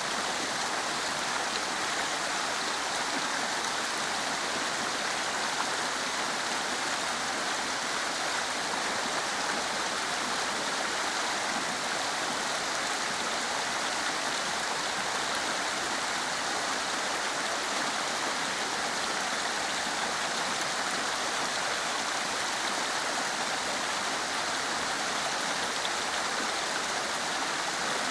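Waterfall: a steady, unbroken rush of falling water with no changes.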